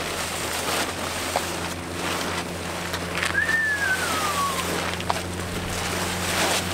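Blue plastic tarp rustling and crinkling as it is dragged and bundled up, over wind noise and a steady low hum. A little after the middle, a single whistle-like tone glides downward for about a second and a half.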